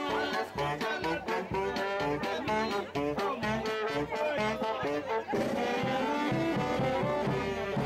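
Brass band music: held horn notes over a pulsing bass line, with a new phrase starting about five seconds in.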